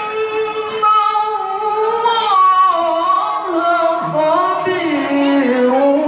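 A man's melodic Quran recitation (tilawah) into a microphone, amplified: long held notes with wavering ornaments, the melody stepping down to a lower pitch in the second half.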